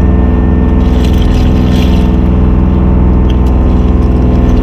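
Small fishing boat's engine running steadily, a loud even drone.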